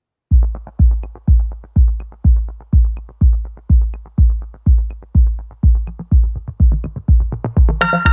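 Electronic background music with a steady, heavy kick-drum beat about two a second and light ticks between the beats, starting after a brief silence; a bright synth chord joins near the end.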